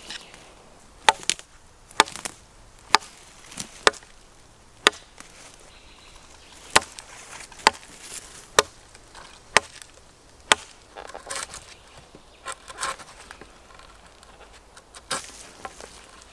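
Full-tang knife blade chopping into wood, sharp strikes about once a second, followed near the end by rougher scraping as the blade carves into birch.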